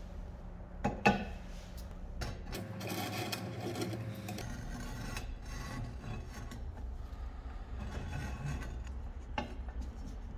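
Old rusty cast-metal charcoal iron being handled on a wooden workbench: a sharp knock about a second in as it is set down, then rough scraping and rubbing as it is slid and turned over the wood, with another short knock near the end.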